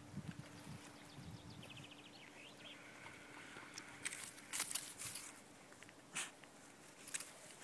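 Faint footsteps and crackling rustle in dry grass and reeds on soft muddy ground, loudest in a cluster of sharp crackles about four to five seconds in and again near six and seven seconds. A brief faint high trill comes about two seconds in.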